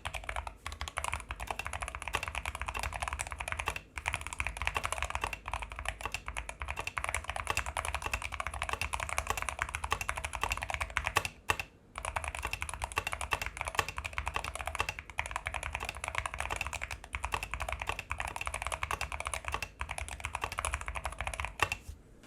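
Continuous fast typing on a Rama M60 mechanical keyboard with tactile Zealios V2 67g switches and PBT keycaps: a dense stream of key presses with a couple of brief pauses, the longest about twelve seconds in.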